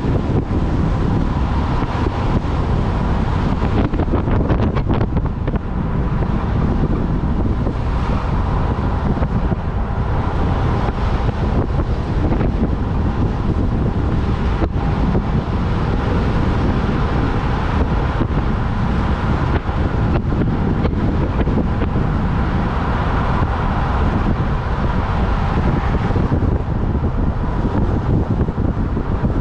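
Wind buffeting the microphone over steady road and engine noise while travelling at highway speed.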